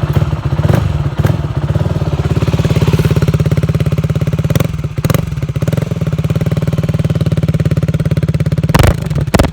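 KTM Duke 125's single-cylinder engine idling steadily, with a few sharp clacks over it, the loudest near the end.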